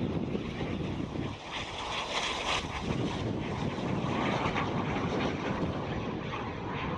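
Propeller airplane engine running steadily, a dense noise that swells briefly about two seconds in.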